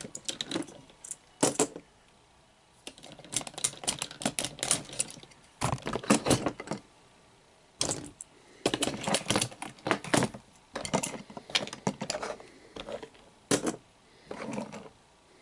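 Hard plastic toy parts clicking and clattering as small snap-on header pieces are pried off a Power Rangers Gosei Great Megazord figure and set down. The clicks come in several quick runs with short pauses between them.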